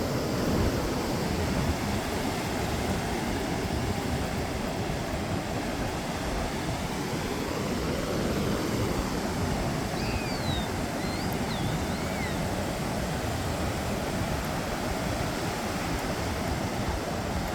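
Ocean surf breaking as a steady wash of noise, with wind rumbling on the microphone. A few faint high, gliding calls come in about ten seconds in.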